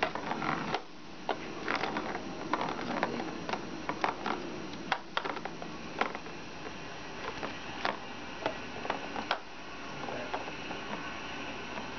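Irregular plastic clicks and rattles of a ball-track cat toy as kittens bat at it and knock the ball round its circular track.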